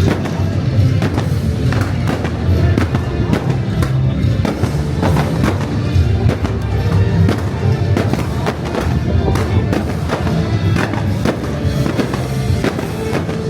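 Fireworks going off in rapid, irregular bangs and crackles over loud show music played alongside the display.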